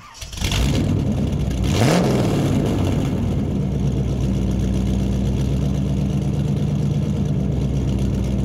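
A car engine comes in, revs up once with a rising pitch, then settles into a steady, even idle.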